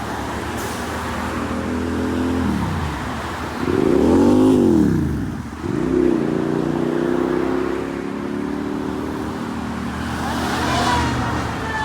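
Fire ladder truck's diesel engine pulling away under acceleration, its pitch rising and falling with the gear changes and loudest about four seconds in. Near the end a siren begins to wind up.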